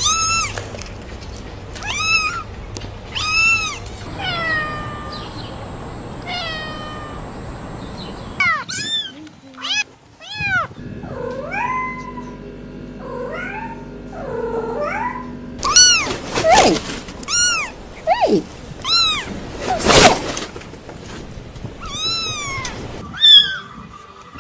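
Kittens mewing over and over in short, high calls, with a few sharp clicks or knocks in the second half.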